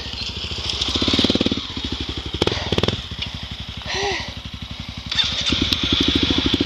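Honda dirt bike's single-cylinder engine idling at a standstill, with an even run of firing pulses; it is blipped up briefly about a second in and runs louder again from about five seconds on.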